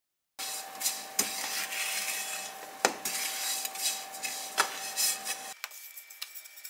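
Breadcrumbs being stirred and scraped around a non-stick frying pan with a plastic spoon as they toast golden: a dry rustling scrape with sharp taps of the spoon against the pan. It starts about half a second in and stops about five and a half seconds in.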